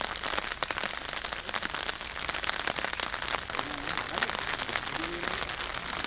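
Rain falling steadily, full of many small, sharp drop hits, with faint voices in the background about two thirds of the way through.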